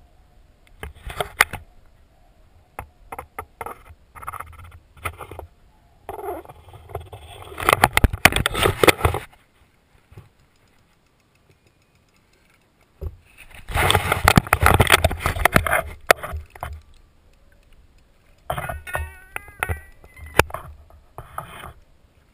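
Water splashing and lapping in irregular bursts against a kayak and its camera at the waterline. The sound drops out to near silence for about three seconds, around ten seconds in.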